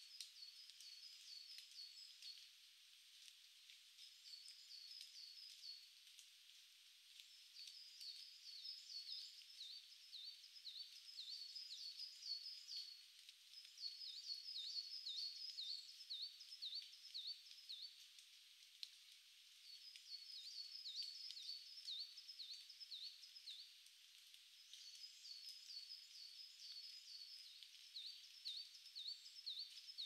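A small songbird singing faint, high-pitched phrases of rapid repeated notes: about six phrases a few seconds long, with short pauses between, over a faint steady hiss.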